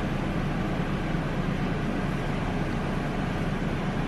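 Steady room background noise: a low hum under an even rushing hiss, unchanging throughout.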